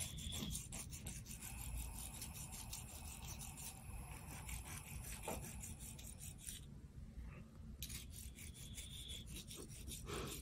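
A metal nail file rasping across a bulldog's claws in quick, repeated back-and-forth strokes, faint, with a short pause about two-thirds of the way through.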